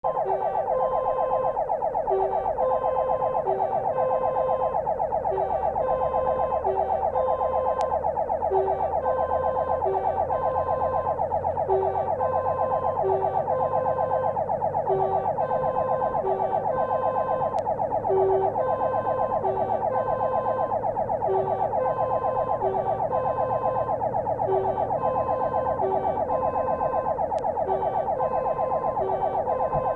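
Fire engine's electronic siren running on an emergency run, heard from on board: a fast-warbling wail with a pattern that repeats a little faster than once a second, unbroken, over the low rumble of the vehicle.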